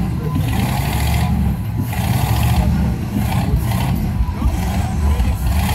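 Doodlebug tractor's engine running steadily, a deep low rumble with no revving.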